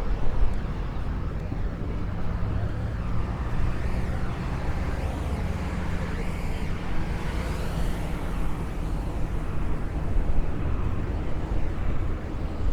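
A steady low engine hum, with a swell of rushing noise that builds and fades about five to nine seconds in, as of something passing by.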